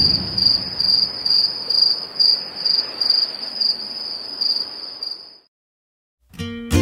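Cricket chirping in a steady high trill, about two to three chirps a second, over the fading low rumble of a deep impact. The chirping stops about five seconds in, and acoustic guitar music begins near the end.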